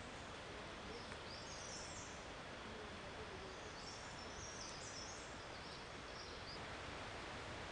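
Steady hiss of forest ambience, with a bird giving short, high, stepped chirps a few times, about two seconds in and again in the middle.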